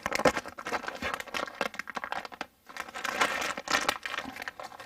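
Crinkling and rustling of packaging being handled, a dense crackle that stops briefly about two and a half seconds in.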